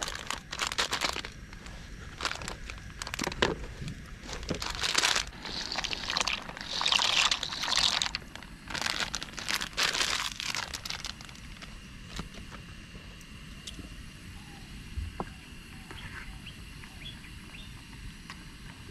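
Rustling and crinkling handling noises, like something plastic or papery being handled, for about the first eleven seconds. The rest is quieter, with a few light clicks.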